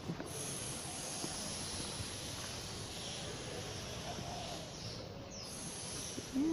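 Steady outdoor background noise with no clear single source. A short voice sound breaks in just before the end.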